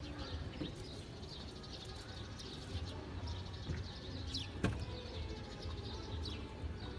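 Small birds chirping now and then, in short falling chirps, over a low steady outdoor rumble; a single sharp click a little past the middle.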